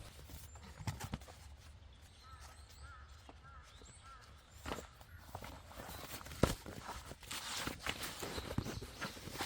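Footsteps and rustling on the ground with scattered knocks, the loudest about six and a half seconds in. A bird chirps a short series of calls between about two and four seconds in.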